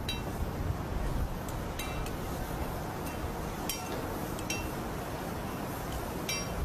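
Sharp metal-on-metal clinks, about six at uneven intervals, each ringing briefly, over a steady low rumble.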